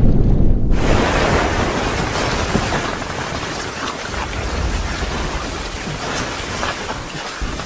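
A muffled, low underwater sound cuts, under a second in, to loud splashing water as people thrash through it, with a low rumble underneath.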